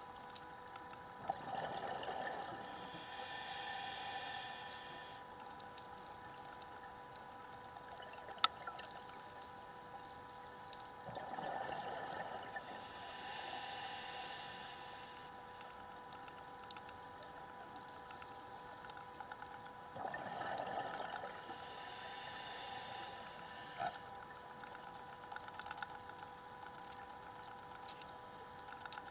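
Scuba diver breathing through a regulator underwater: three breaths about nine seconds apart, each a few-second burst of bubbling and hiss. A steady faint tone runs underneath, and there is one sharp click about eight seconds in.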